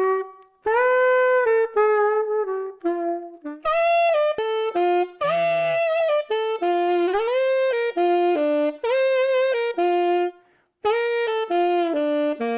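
Solo tenor saxophone playing a melody of single held notes, one after another, with some slides between notes and a short pause near the end.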